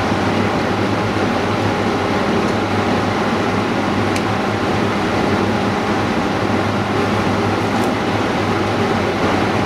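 Steady whir and low hum of running workshop machinery, with a couple of faint light clicks.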